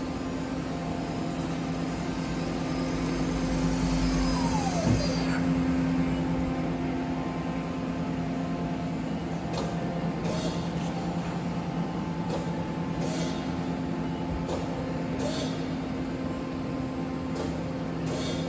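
Mori Seiki SL-154SY CNC lathe running with a steady mechanical hum. About four to six seconds in it grows louder, with a falling whine near the peak, then settles back. In the second half come several short, sharp hissing clicks as the tool turret moves.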